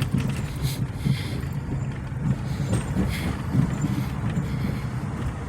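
Car heard from inside the cabin: a steady low engine and road rumble, with a few brief higher noises.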